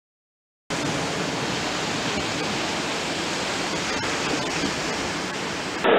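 Steady rushing noise of wind and surf at the seashore, cutting in suddenly under a second in after silence.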